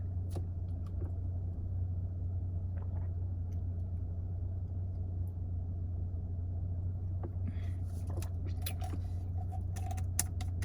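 Car engine idling, a steady low hum heard inside the cabin, with a few faint clicks and rustles near the end.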